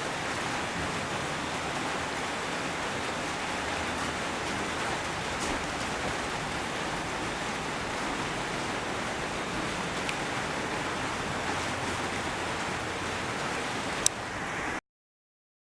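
Steady, even rushing noise with no pitch, like hiss, with a few faint clicks and a sharp click just before it cuts off abruptly near the end.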